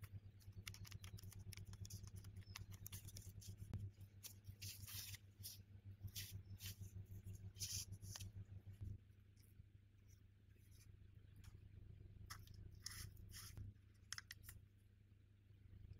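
Faint crinkling and light clicks from hands in disposable plastic gloves working mooncake dough, irregular and crisp, over a low steady hum.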